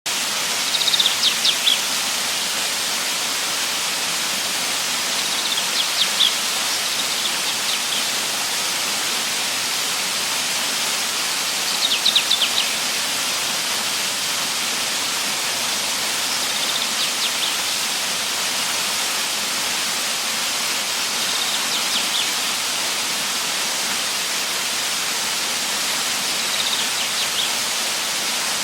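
Steady rush of flowing water, with a bird's short burst of quick high chirps repeating about every five seconds.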